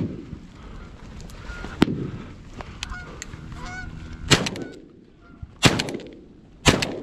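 Canada geese honking, with three shotgun shots in the second half, about a second apart, louder than the honking.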